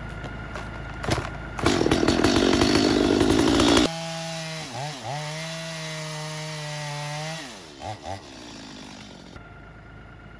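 Stihl MS 250 two-stroke chainsaw at full throttle on a fallen tree trunk. It runs loud and rough for about two seconds, then settles into a steady high whine that dips twice in pitch as the chain bites. Near the end the pitch falls away as the throttle is released, followed by two short throttle blips.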